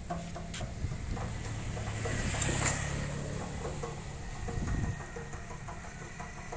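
Diesel engine of a mobile bandsaw rig idling steadily, with a brief louder swell about two to three seconds in, likely a passing motorbike.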